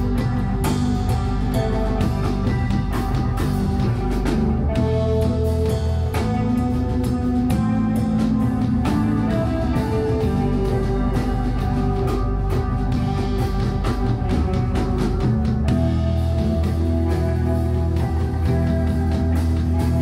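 Live rock band playing a song on electric guitars and drum kit, with held guitar notes over a steady drum beat.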